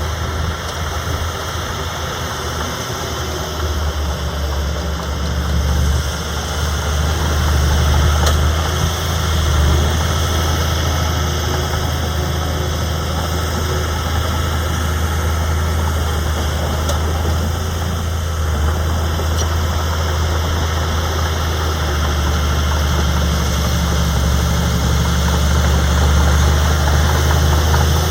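Heavy diesel earthmoving machinery running steadily with a strong low engine drone, at a bulldozer working alongside dump trucks.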